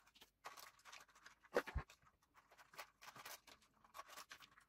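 Faint rustling and light clicking as jumper wires, a ribbon cable and bagged electronic parts are handled and packed into a clear plastic storage box. There is one soft knock about a second and a half in.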